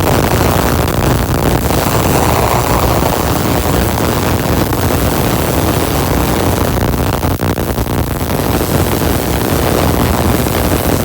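Tesla coil running with an air-blown spark gap: a loud, steady, rough buzzing noise, dipping briefly about seven seconds in.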